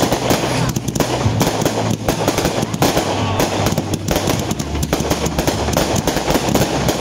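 Fireworks batteries firing in quick succession in a display finale: a dense, unbroken run of launches, pops and crackling bursts.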